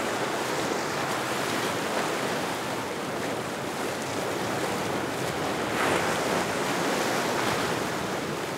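Choppy inlet water washing and slapping, with wind buffeting the microphone: a steady rushing that swells a little about six seconds in.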